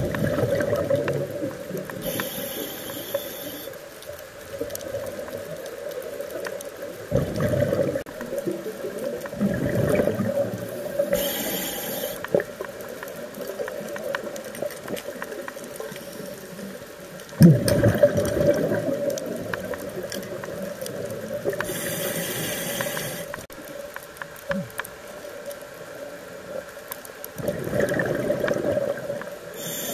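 Scuba regulator breathing underwater: a short hiss with each inhalation about every ten seconds, and bursts of exhaled bubbles gurgling between them.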